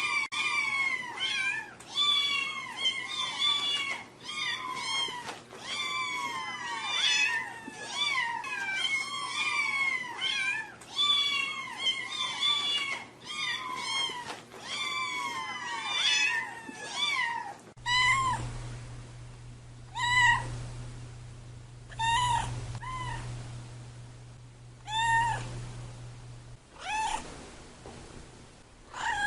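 Cats meowing: a quick run of repeated meows, about two a second. About eighteen seconds in it changes to slower single meows every second or two over a low hum, and the hum stops a few seconds before the end.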